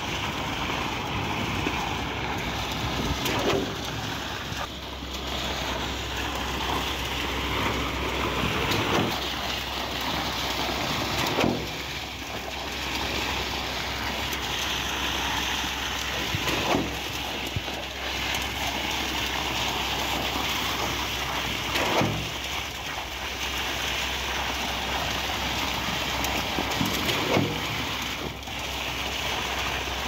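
Concrete pump running while wet concrete gushes out of the end hose onto the rebar slab, a steady rushing spatter. A short knock comes about every five seconds, evenly spaced, as the pump's pistons change stroke and push each surge through the hose.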